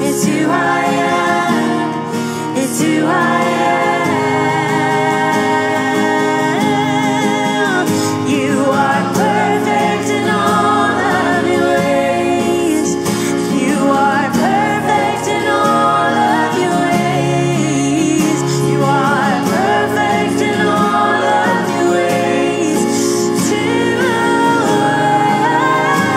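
Live worship song: a female lead singer with backing singers over acoustic guitar and band accompaniment, sung continuously.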